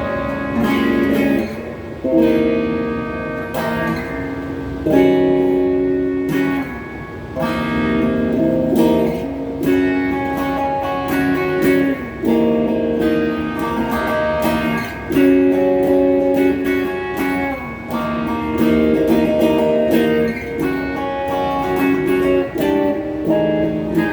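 Electric guitar strumming chords, changing chord every second or two. It is a Donner HSS strat-style guitar played through a phaser pedal and a Klon-clone overdrive into a Crate GX30M amp.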